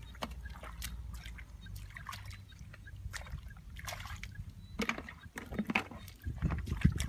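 Hands and feet splashing and sloshing in shallow muddy water, a string of small irregular splashes that grows louder with heavier sloshing thuds in the last couple of seconds as he wades through the mud.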